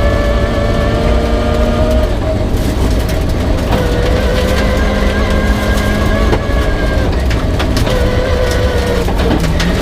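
Rear-wheel-drive Peugeot 306 rally car's engine running hard at speed, heard from inside the car. Its note holds steady and shifts pitch several times through gear changes, with scattered sharp clicks and knocks over it.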